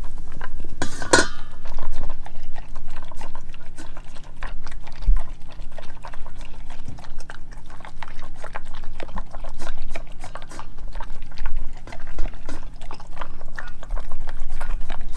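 A dog eating dry kibble, moistened with water, from a stainless-steel bowl: a dense, continuous run of crunches and chewing clicks, with a louder burst about a second in.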